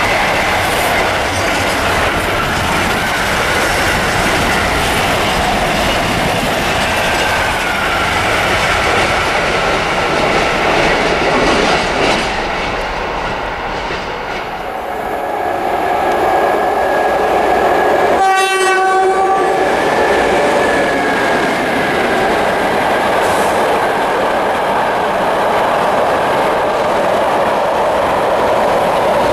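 Container freight trains passing, their wagon wheels clattering over the rail joints. The first train fades out about halfway through and a second one comes through. Around the middle a locomotive horn sounds for several seconds.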